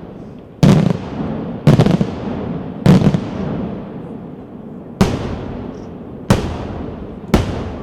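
Fireworks display: six loud bangs at uneven intervals of one to two seconds, each trailing off in a long echoing rumble.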